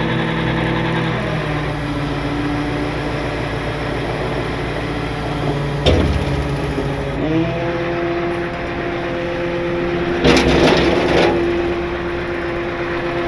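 Tow truck's engine running under load from its hydraulic boom controls, with steady tones that step in pitch about a second in and rise again about seven seconds in as a lever is worked. A single sharp crack comes about six seconds in, and a brief hiss about ten seconds in.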